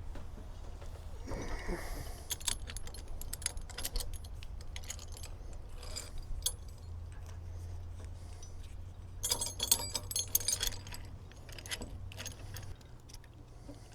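Small metal parts clinking and rattling as they are handled, in clusters about two seconds in and again around nine to eleven seconds in, over a faint low hum.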